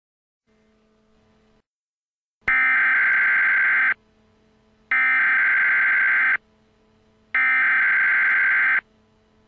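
Emergency Alert System SAME header: three identical bursts of screechy digital data tones, each about a second and a half long and about a second apart, the coded header that opens an EAS alert. A faint low hum sits between the bursts.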